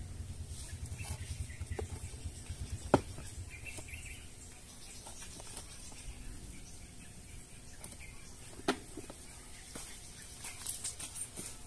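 Hands and a small trowel working loose potting soil in a plastic grow bag: scraping and patting noises, with a sharp knock about three seconds in and another about nine seconds in.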